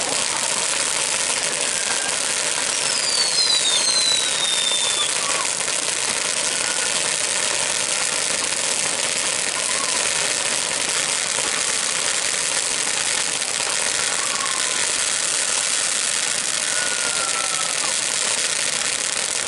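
Ground fountain firework spraying sparks with a steady, dense hissing crackle. A couple of thin falling whistles come through about three to four seconds in.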